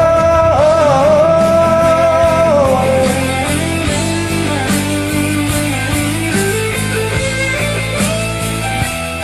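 Karaoke backing track of a pop-rock ballad playing an instrumental passage with guitar, opening on a long held note that ends about three seconds in.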